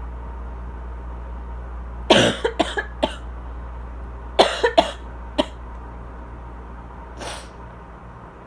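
Asthmatic dry coughing: two fits of about four coughs each, a couple of seconds apart, then a fainter cough near the end. A loud air conditioner hums steadily underneath.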